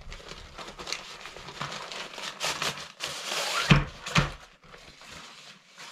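Softbox packaging being handled and opened: scattered rustling and clicks, a longer crinkling rustle about three seconds in, then two dull thumps.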